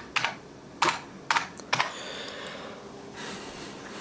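Four separate clicks of keys pressed on a computer keyboard, about half a second apart in the first two seconds, then only a faint steady background.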